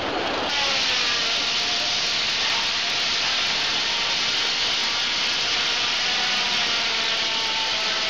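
Old circular sawmill's large blade sawing through a log: a steady, loud hiss of cutting with a faint wavering whine from the spinning blade, starting suddenly about half a second in.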